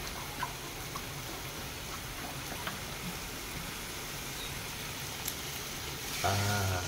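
Chicken curry simmering in a steel kadai on a gas stove: a steady bubbling sizzle with occasional small pops, the masala beginning to stick to the bottom of the pan. A short pitched call breaks in near the end.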